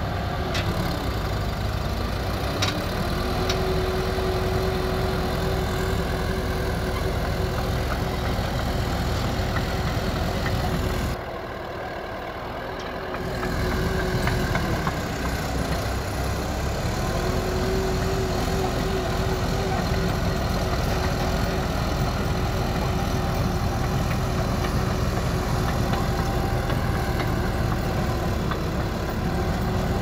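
Heavy diesel engines of a Caterpillar bulldozer and excavator running under load as they push a broken-down bulldozer. The engine note sags and recovers about a second in, then again around halfway. The sound drops away briefly for about two seconds just before halfway.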